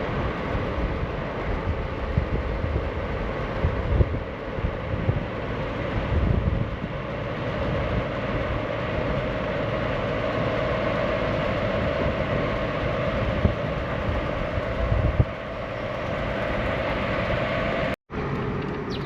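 Motor vehicle driving along a rough road: steady engine and road noise with low rumbling jolts, the engine note rising slightly about halfway through. The sound cuts out briefly near the end.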